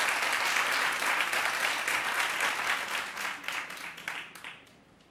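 Audience applauding, the clapping thinning and dying away about four seconds in.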